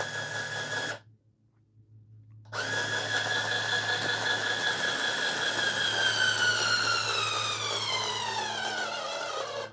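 Hurricane Juicer's battery-powered motor running with a high whine as it juices a half orange. The whine breaks off for about a second and a half near the start, then runs again, falling steadily in pitch over the last few seconds before it stops.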